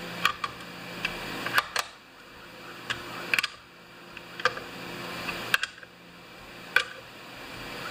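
Hand screwdriver tightening the screws of a Homelite XP 1020 chainsaw's plastic recoil-starter cover: a soft rasp of the screws turning that swells and breaks off in a sharp click, several times over, about once a second.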